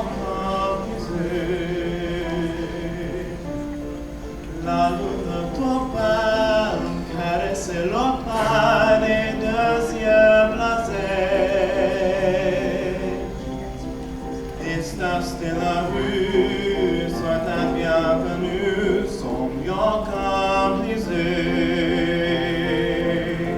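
A vocal group singing held chords in close harmony, the voices wavering with vibrato and moving to a new chord every few seconds.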